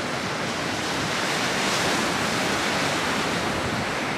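Sea surf breaking on a rocky shore: a continuous rush of waves that swells a little in the middle.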